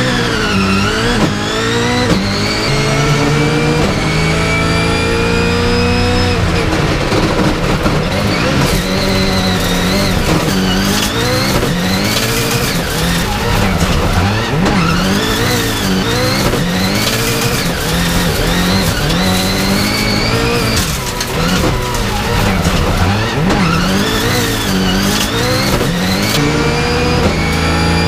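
A 2019 Subaru WRX STI rallycross Supercar's turbocharged 2.0-litre flat-four, heard from inside the cockpit under racing load. It climbs hard in pitch through the first gears off the start, then rises and drops over and over with each shift and lift through the lap, with sharp cracks now and then.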